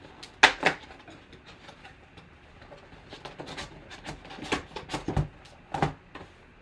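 Cardboard trading-card hobby box being handled, its lid folded back and tucked into a display stand. The handling gives a series of sharp clicks, taps and rustles, the loudest about half a second in and several more in the last few seconds.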